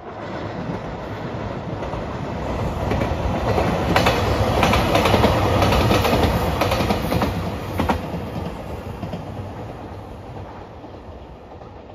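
JR Shikoku 2700 series diesel limited express train passing close by. The noise builds to a peak with a run of clickety-clack wheel clicks over the rail joints about four to eight seconds in, then fades as the train moves away.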